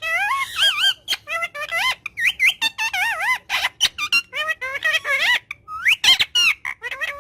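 A parrot chattering: a rapid, unbroken string of squeaky, warbling calls that wobble up and down in pitch, mixed with sharp clicks.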